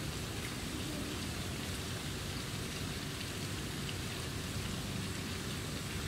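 Steady outdoor background hiss, even throughout, with a few faint scattered ticks.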